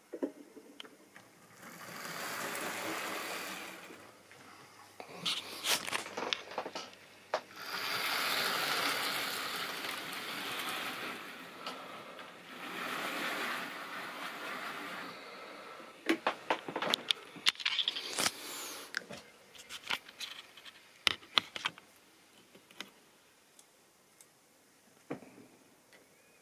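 Model railway train running on sectional track: a rolling rumble of wheels and motor that swells and fades three times as the train passes close by, with bursts of rapid sharp clicking between.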